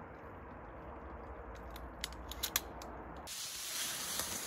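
Low steady outdoor background with a few faint clicks. About three seconds in, a steady hiss of tall grass and weeds rustling and brushing against clothing begins as a person pushes through a reedy thicket.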